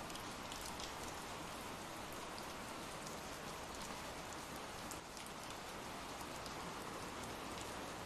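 Steady rain falling: an even hiss with scattered faint drop ticks.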